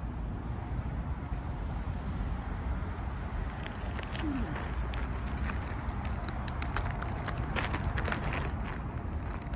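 Steady low rumble of street traffic, with a run of small clicks and crackles from about four seconds in until near the end.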